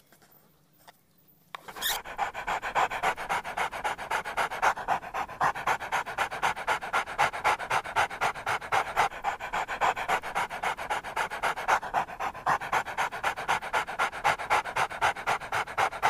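Lhasa Apso dog panting quickly and evenly. It starts about two seconds in, after a nearly quiet opening.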